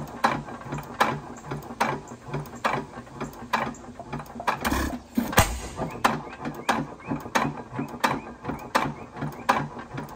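6 hp headless Witte hit-and-miss engine running, its valve gear clicking steadily about two to three times a second as the flywheels turn. One louder firing stroke comes about five seconds in.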